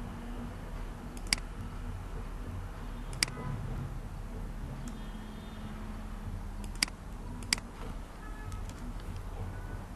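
Four sharp computer mouse clicks spread over a steady low hum of room and computer noise.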